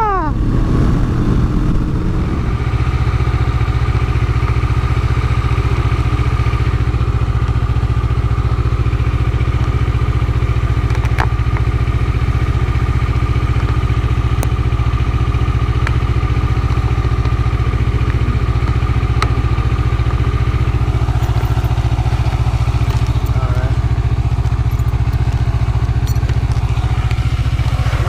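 Yamaha FZ-09's inline three-cylinder engine running at a steady cruising speed, under heavy wind rush on the helmet microphone. Right at the start the engine note falls sharply, then it holds a steady drone.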